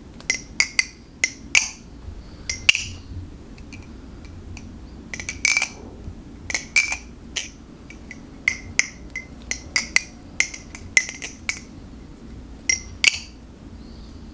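LDY Sirius V3 balisong being flipped: sharp metallic clicks and clacks of the handles and blade tang striking, in quick irregular clusters, each with a brief ring. A tight knife with no play in the pivots.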